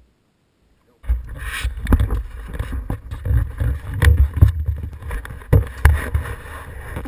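Silent for about the first second, then a loud, muffled low engine rumble from the idling machines, through an action camera's housing. Repeated sharp knocks and rubbing come from the helmet-mounted camera being bumped as the rider moves.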